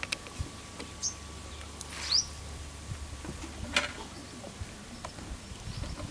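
Bajji deep-frying in hot oil in an iron kadai, a faint steady sizzle with a few light clicks. About two seconds in, a bird gives a short rising chirp, the loudest sound, and a low hum runs under the first four seconds.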